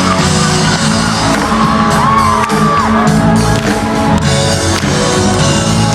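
Loud amplified band music with a heavy bass line and drums, ringing in a large hall, with voices whooping and shouting over it.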